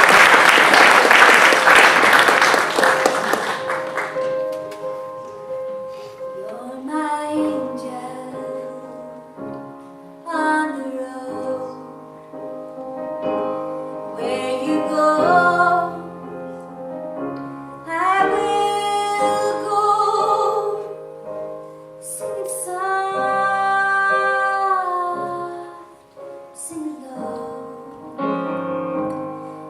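Audience applause that dies away over the first few seconds, then a woman singing a slow melody, accompanied by piano.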